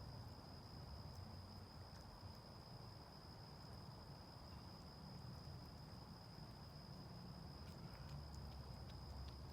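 Near silence: a faint, steady high-pitched tone over a low hum, with a few faint clicks near the end.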